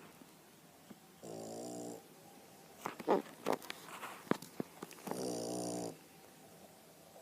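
Sleeping Boston terrier snoring: two buzzy snores, each about a second long and a few seconds apart, with a run of short sharp snorts and clicks between them.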